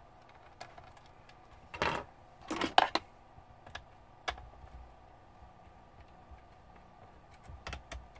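Small hard parts clicking and clattering as screws and a screwdriver are handled on a plastic laptop case. The clicks come in short bursts, the loudest clatter about two and a half seconds in, with a few single clicks and another short burst near the end.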